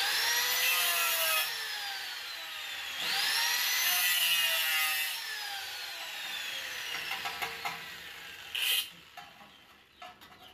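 Handheld electric angle grinder run twice on metal. Each time it spins up with a rising whine and grinds with a harsh hiss, then is switched off and its whine falls away slowly as the disc coasts down. A short, loud burst of grinding comes near the end.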